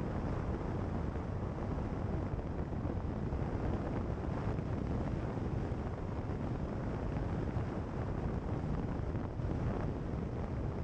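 Car driving along a gravel road: a steady rumble of tyre and road noise with wind on the microphone, even throughout.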